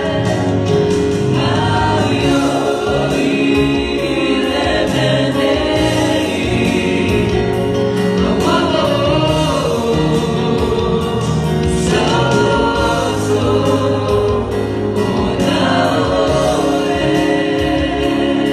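A worship team of women and men singing a Samoan-language gospel song together into microphones, in sustained phrases.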